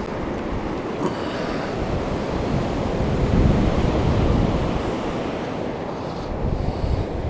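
Ocean surf washing onto the beach, with wind buffeting the microphone; the surf swells loudest about three to five seconds in.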